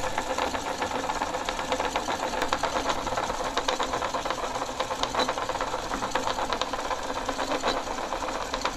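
Homemade open-reel VHS tape cleaner, built from a VCR, running: its motor and reels whir with a fast, even ticking as the VHS tape winds through under tension.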